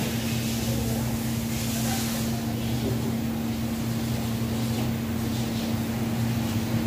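Steady mechanical hum of workshop machinery at one constant low pitch, with an even hiss under it.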